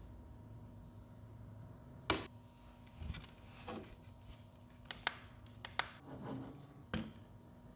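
Handling noises from unboxing a mini fan humidifier: a scattered series of light clicks and knocks, about nine in all, some in quick pairs.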